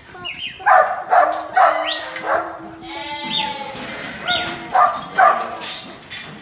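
Sheep bleating in the yards, their calls overlapping, with a working dog giving a string of short, sharp barks among them.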